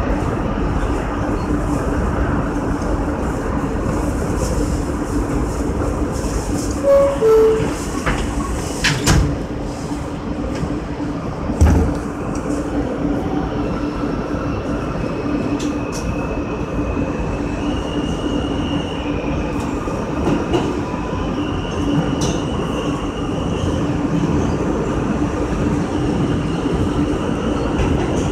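R160 subway train running, heard from the cab: a steady motor hum with rail clicks and a few knocks, the loudest about twelve seconds in. In the second half a high thin whine shifts up and down in steps.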